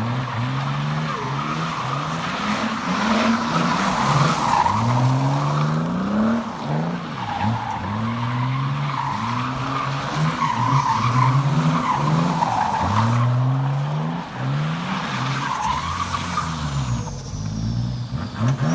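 A car drifting: its engine revs climb and drop again and again over a continuous squeal of tires sliding.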